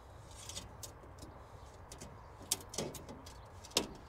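A few short knocks and clinks of a glass pane against the aluminium greenhouse frame as it is fitted into the roof, the loudest near the end, over a low steady outdoor rumble.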